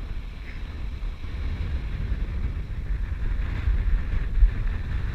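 Wind buffeting the camera microphone in an uneven low rumble, with water washing faintly around the kayak.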